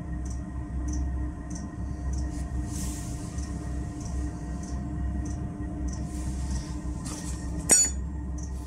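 Diesel air heater running at a low setting: a steady low fan hum with a faint regular tick about one and a half times a second, typical of its fuel pump. A single sharp click sounds near the end.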